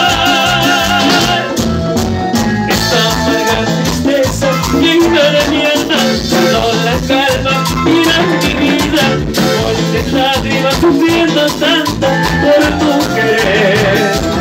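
Live Latin dance band playing: congas, timbales and drum kit keep a steady beat under bass and keyboard. A sung line ends about a second in and the band carries on with an instrumental passage.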